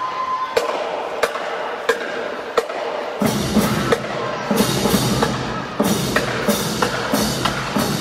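Marching band drumline playing a cadence: sharp, evenly spaced strikes at first, then the bass drums and fuller percussion come in about three seconds in.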